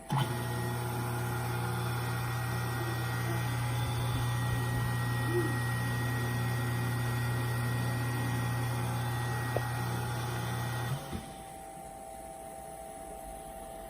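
Taig CNC mill's motor running with a steady hum. It starts abruptly, holds steady for about eleven seconds, then cuts off, leaving a faint background hum.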